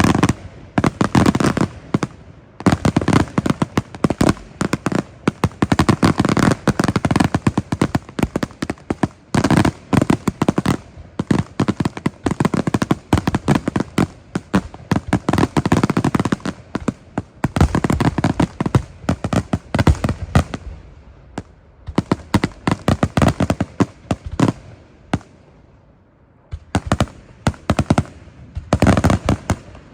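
Fireworks display: a dense, rapid run of shell bursts and crackling bangs that thins out about two-thirds of the way through, then picks up again near the end.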